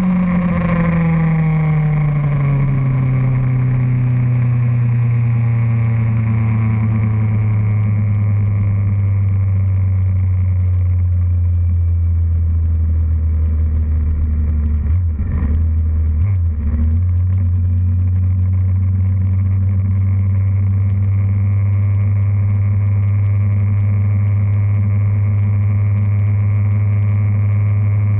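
Motorcycle engine heard from on the bike, its revs falling over the first few seconds as the throttle eases, then running steadily at cruising speed. About halfway through, the revs waver briefly before settling again.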